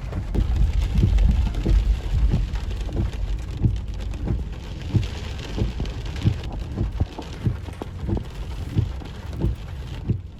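Heavy rainstorm: a steady low rumble of rain and wind with frequent dull thumps.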